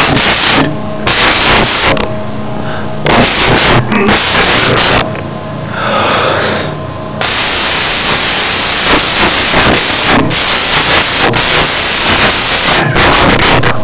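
Loud hissing static that comes in bursts for several seconds, then runs on without a break, with a steady electrical hum and faint whining tones audible in the quieter gaps: noise and interference on the recording's audio feed.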